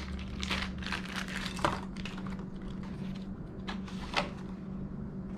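Plastic wiper-blade adapters and the new blade being handled: a run of light clicks and rattles, thinning out after about two seconds, with a couple of louder clicks near four seconds, over a faint steady hum.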